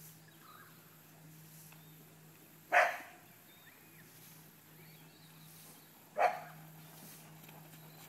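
A dog barking twice, single barks about three and a half seconds apart.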